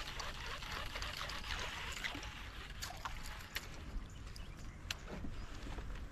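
Water sloshing and splashing around a small fibreglass boat, with a few sharp clicks.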